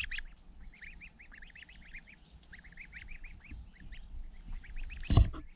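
Month-old goslings peeping: many short, high cheeps, each rising and falling, in quick succession. A loud thump near the end.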